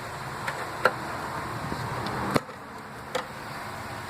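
A few sharp clicks and knocks from hands working a car battery's hold-down rod and clamp, the loudest about two and a half seconds in, over a steady low hum that drops after it.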